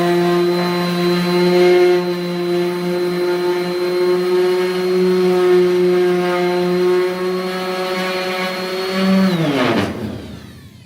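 Electric random orbital sander with a 5-inch hook-and-loop sanding disc running steadily while sanding a surface, a constant motor hum; about nine seconds in it is switched off and winds down with falling pitch.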